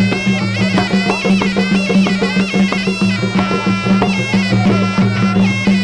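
Traditional ringside boxing music: a reed pipe playing a wavering melody over a steady low drone, with drums and small cymbals keeping a steady beat.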